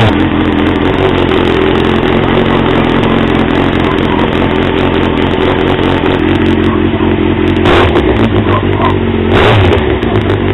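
Kawasaki ZX-11's inline-four engine running just after starting, a deep, powerful exhaust note at a steady idle. It briefly rises twice, about eight and nine and a half seconds in, like light throttle blips.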